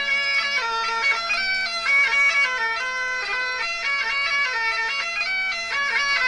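Bagpipe playing a Scottish tune: a melody of quickly changing notes over a steady drone.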